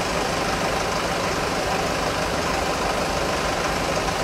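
A motor vehicle engine idling steadily.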